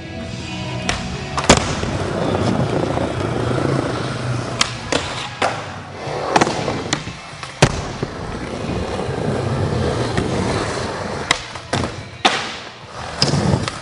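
Skateboard wheels rolling over a smooth indoor floor, broken by many sharp cracks of tail pops, board slaps and landings that ring out in a large, echoing warehouse hall.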